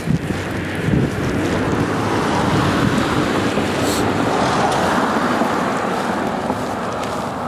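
Road traffic on wet pavement: the tyres of passing cars hiss on the wet road, swelling toward the middle and slowly fading.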